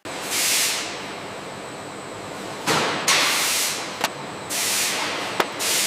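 Factory machinery running with a steady hiss, broken by four short bursts of louder air hissing and a few sharp clicks.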